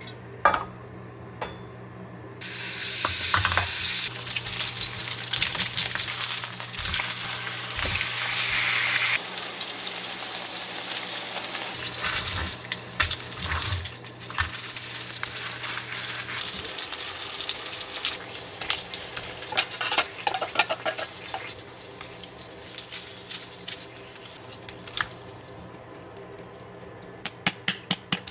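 Tteokgalbi patties frying in oil in a stainless steel pan: a sizzle that starts suddenly a couple of seconds in as they hit the hot oil, loudest for the first several seconds, then settling lower with clicks and scrapes of a wooden spatula. Near the end a quick run of taps comes as chili powder is shaken from a ceramic shaker.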